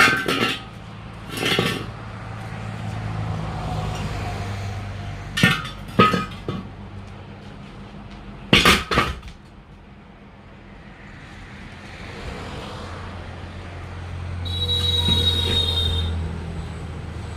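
Hammer blows on the steel parts of a truck wheel during a tyre change: sharp ringing metallic strikes, one at the start, one about a second and a half in, a pair around six seconds and another pair a little after eight seconds. Near the end a passing vehicle's rumble swells, with a high squeal.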